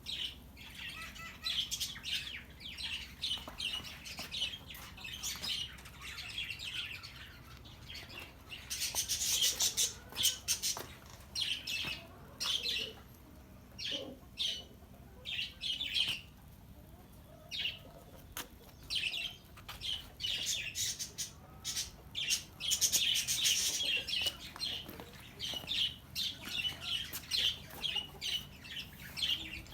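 Songbirds chirping and singing, a steady run of short calls with denser stretches of song about nine seconds and twenty-three seconds in.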